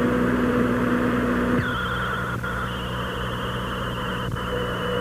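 Steady hissing drone with held electronic-sounding tones. About a second and a half in, the low tone drops out and higher tones take over, holding to the end.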